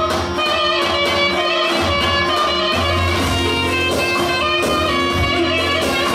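Music with guitar over a changing bass line, playing steadily throughout.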